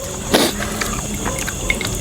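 Close-up wet mouth sounds of a person eating: smacking and slurping food, with one louder wet burst about a third of a second in and small clicks after it.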